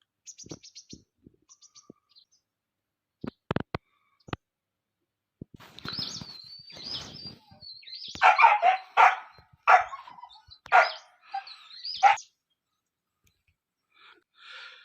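Small birds chirping in quick high trills, then a run of loud, harsh calls from about halfway through, with a few sharp clicks a few seconds in.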